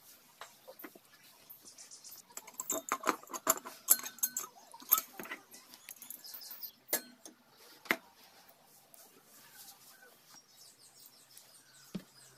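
Small metal clicks, taps and clinks of engine parts being handled as the cylinder barrel of a 150cc single-cylinder engine is fitted over its studs and piston onto the crankcase. There is a busy flurry of clinks with a few sharper knocks between about two and eight seconds in, then only occasional light handling sounds.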